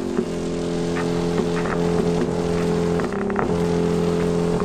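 Subwoofer driven by a homemade transistor amplifier and pre-subwoofer circuit, playing sustained bass notes that step to a new pitch a few times, with a few short clicks over them.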